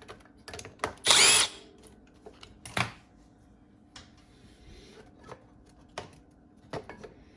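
Power drill whirring briefly about a second in as it backs out a fastener on a push mower's carburetor shroud. A shorter sharp burst follows near three seconds, with scattered clicks of tools and parts being handled.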